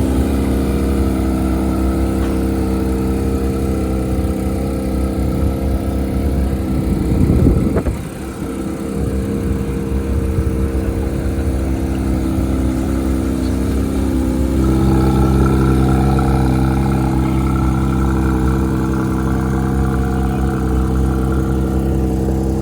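Porsche GT3 RS's naturally aspirated flat-six on its stock exhaust, idling steadily, with one quick throttle blip about seven seconds in. Partway through, the idle note shifts and then holds steady again.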